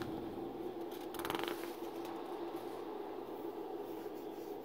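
Quiet room tone with a steady low hum, broken a little over a second in by a brief rapid clicking rattle.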